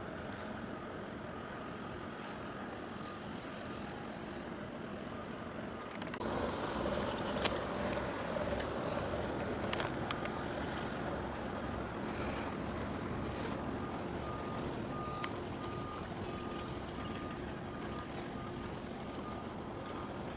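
Outdoor harbourside ambience: a steady rumble of wind and distant engines, with a single-pitched electronic beep repeating about twice a second, plainest in the second half. The background gets louder about six seconds in.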